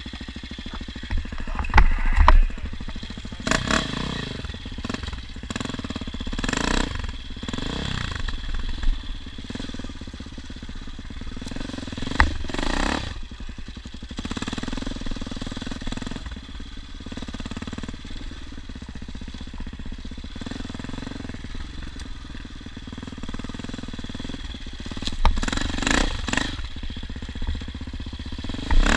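An engine running, its pitch rising and falling as it is revved, with scattered knocks and rattles.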